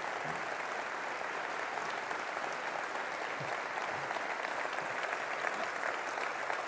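Congregation applauding: many hands clapping together in a steady, even patter.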